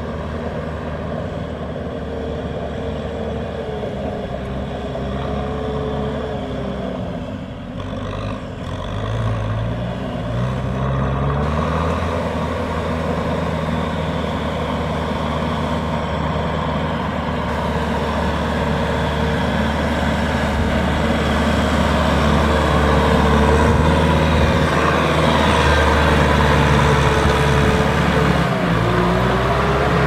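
Kubota DC-95 GM rice combine harvester running, its diesel engine and threshing machinery giving a steady loud drone with a wavering whine over it. The engine note rises about a third of the way in, and the sound grows louder toward the end.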